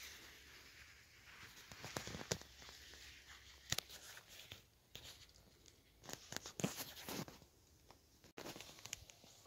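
Faint rustling and crackling of raspberry leaves and canes brushed close to the microphone, with a few sharp clicks, the loudest about a third and two thirds of the way through.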